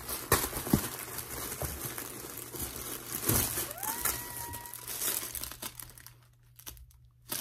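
Paper wrapping and packaging crinkling and rustling as folded clothes are pulled out of a cardboard box, with a few sharp knocks early on. A short rising squeak comes about four seconds in, and the rustling dies down after about six seconds.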